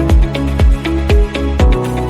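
Electronic dance music with a steady kick drum about twice a second under held bass and synth notes.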